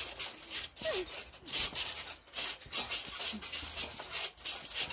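Trampoline mat and steel springs creaking and swishing under two people bouncing, a rasping sound that swells and fades again and again with the bounces.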